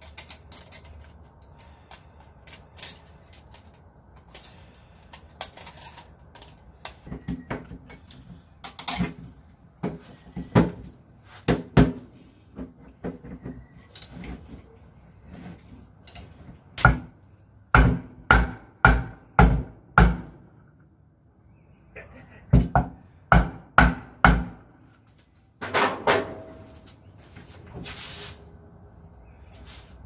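Sheet-metal clicks and knocks from a galvanized dryer-vent pipe being worked with multitool pliers, then knocked and pushed into a hole in an old refrigerator's wall. The knocks come in tight runs in the second half, several of them loud and sharp.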